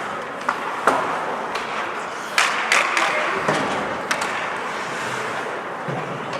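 Ice hockey play: skates scraping on the ice and a series of sharp clacks of sticks and puck, some spaced a second or so apart, over a steady rink hubbub.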